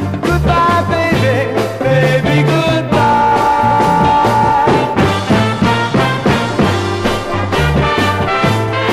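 Soul record playing: a full band with steady bass and drums, and a long held note that comes in about three seconds in and lasts about two seconds.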